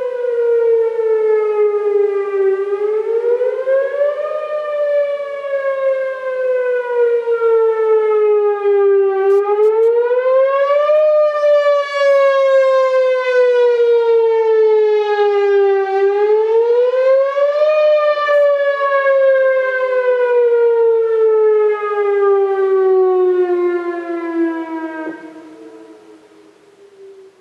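Whelen WPS-4008 electronic warning siren sounding its wail tone from its rotating speaker array during an outdoor warning system test. The pitch climbs for about two seconds, then falls slowly for about five, three times over. Near the end the tone falls away and fades out as the wail cycle ends.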